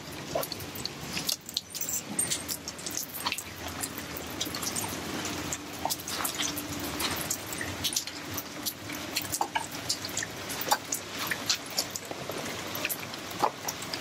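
Rain dripping and pattering on a wet concrete rooftop: many irregular sharp drops and ticks over a steady wash of water.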